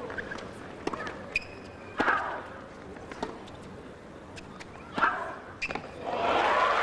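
Tennis rally: a ball struck back and forth with rackets, several sharp hits about a second or so apart, with softer bounce clicks between them. Crowd applause begins near the end as the point finishes.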